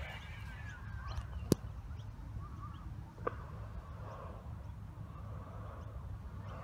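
Wind rumbling on a phone microphone, with a sharp click about a second and a half in and a smaller one about three seconds in, and faint wavering sounds in the background.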